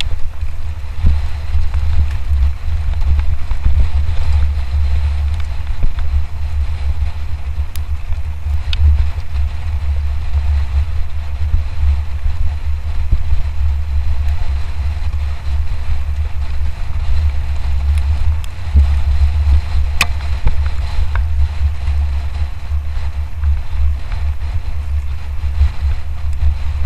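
Heavy wind buffeting on the microphone of a camera carried on a mountain bike in motion, a constant low rumble. A few sharp clicks and knocks from the bike going over rough ground are scattered through it, the clearest about twenty seconds in.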